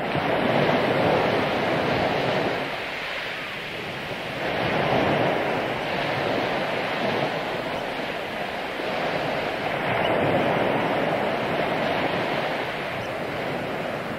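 Ocean waves washing in, a steady rush that swells and fades roughly every four to five seconds.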